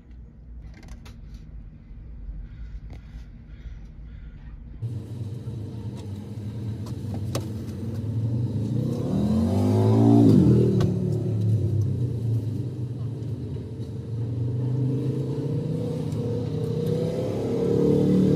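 Car engines driving past, getting louder; one vehicle passes close about halfway through, its engine pitch rising and then dropping sharply as it goes by, and another approaches near the end.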